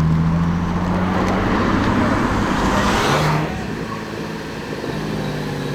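Audi RS4 B5's twin-turbo V6 running at a steady note, then a rush of car noise that builds and drops off sharply about three and a half seconds in, leaving a quieter engine hum.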